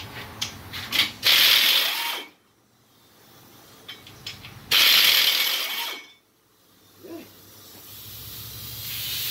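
Pneumatic air ratchet run in two bursts of about a second each, a loud hissing whirr of exhaust air, with light clicks before each burst. A hiss builds up again near the end.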